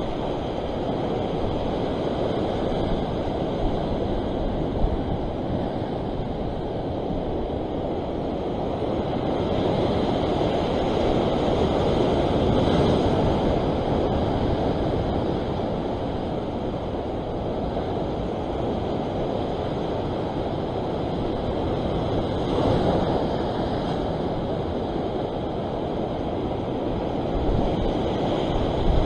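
Ocean surf washing against rocks, with wind buffeting the microphone. It is a continuous rush that swells about ten seconds in and again a little past twenty-two seconds.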